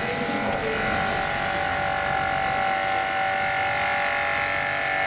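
Electric pressure washer running steadily: a constant motor-and-pump hum with the hiss of the water jet being sprayed onto a glider trailer.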